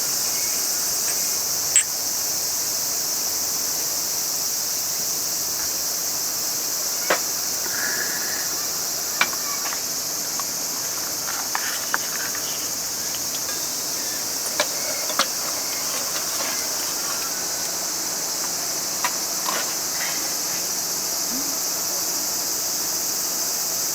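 Steady high chorus of crickets and other autumn insects, with a handful of short sharp clicks and knocks scattered through it.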